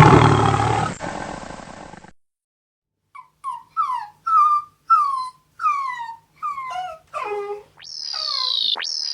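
The end of a loud animal roar fades out. After a second's pause comes a run of about nine short animal cries, each falling in pitch. Near the end, high falling sweeps repeat about once a second.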